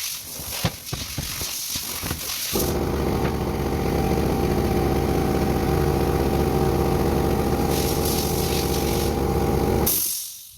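A motor or engine starts abruptly about two and a half seconds in, runs steadily and loudly, then dies away near the end. Before it there are light clicks and knocks.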